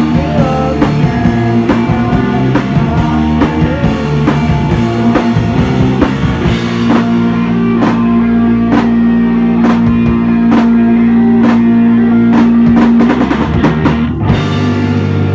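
Live rock band playing electric guitar, bass guitar and drum kit, with steady drum hits throughout. About halfway in a single note is held and rings steadily for several seconds over the drums.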